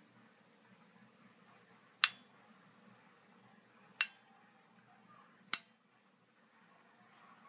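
Three sharp clicks of a light switch, two seconds and then a second and a half apart, over a faint low hum; the last click turns off the light shining through the bead mask.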